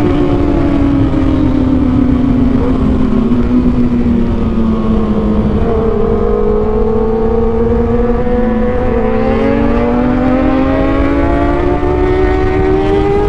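Kawasaki ZX-6R 636 inline-four engine running at high revs under way. Its note sags slowly over the first several seconds and then climbs back up toward the end, over a heavy low rumble.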